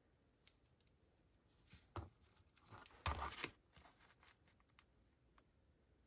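Paper being handled: a light tap about two seconds in, then a short crinkle of paper a second later, with a few faint ticks around it.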